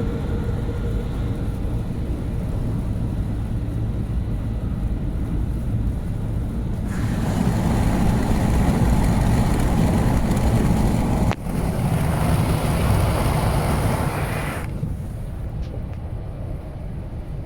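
Road and engine noise inside a RAM 1500 pickup's cabin while driving: a steady low rumble that turns louder and hissier for several seconds in the middle, drops out for an instant partway through, then eases off near the end.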